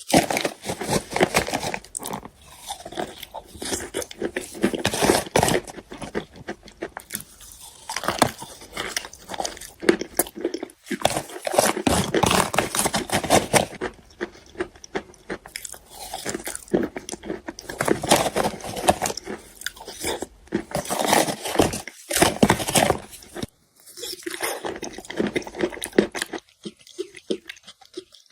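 Wet chalk bitten and chewed close to the microphone: soft crunches in crackly clusters of a second or two, with short pauses between.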